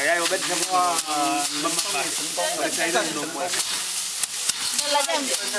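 Bundles of rice stalks rustling and crackling as they are beaten and rubbed over the wire grid of a wooden hand-threshing frame to strip the grain, with many sharp knocks. People talk over it.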